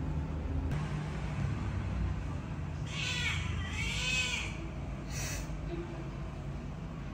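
Orange-and-white domestic cat giving one long meow about three seconds in, its pitch dipping and then rising and falling, over a steady low background rumble.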